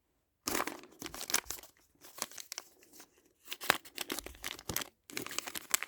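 Small plastic wrapper around a miniature toy being torn open and crinkled: a run of crackles and sharp snaps with short pauses, starting about half a second in.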